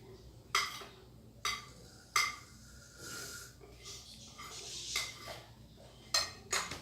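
Sharp taps of a utensil against a container while slime ingredients are mixed, five in all, with stretches of soft hissing and squishing between them.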